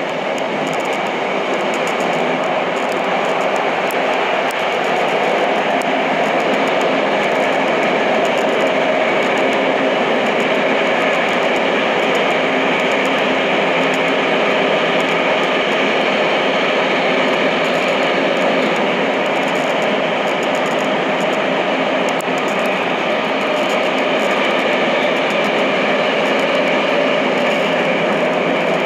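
Tokyo Metro Namboku Line subway train running between stations, heard from inside the car: a loud, steady rush and rumble of wheels on rail with a few faint held tones over it.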